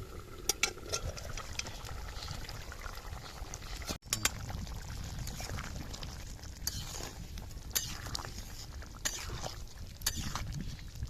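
Liquid bubbling and sloshing, with sharp clicks scattered through it and a brief break about four seconds in.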